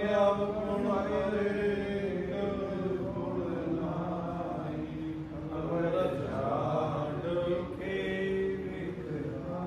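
Voices chanting a Sikh prayer, drawing the words out in long, held notes.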